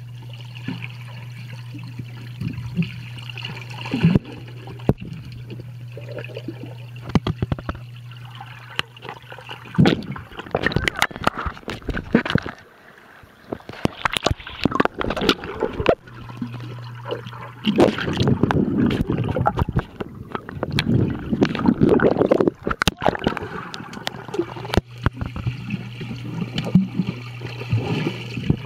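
Swimming pool heard from underwater: a steady low hum, with bubbling, sloshing and sharp clicks as the water is stirred, busiest through the middle, and muffled voice-like sounds.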